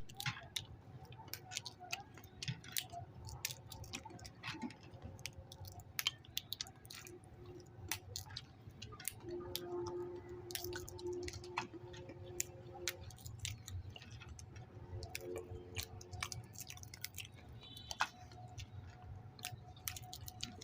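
Raw peanuts being eaten: faint chewing with many scattered, crisp cracks and crunches.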